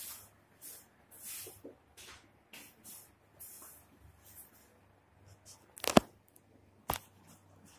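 Handling noise from the recording device: soft repeated scuffs and rustles, then two sharp knocks about a second apart near the end as the device is grabbed and moved.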